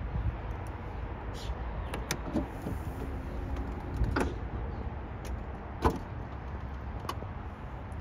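Rolls-Royce Cullinan's powered tailgate closing at the press of its button: a click, a faint motor hum as it lowers, then knocks as it comes down and latches shut, the loudest about six seconds in.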